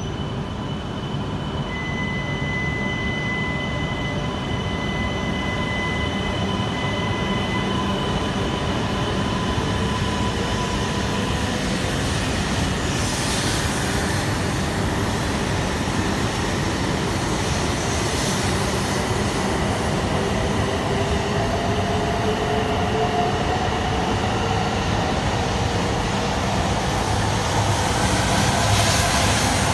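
Shinkansen trains (an E3+E2 coupled set and an E5) pulling out of the station: steady running rumble and rolling noise. A steady high tone sounds for several seconds near the start. In the second half the traction motors' whine rises in pitch as the trains accelerate, growing louder near the end.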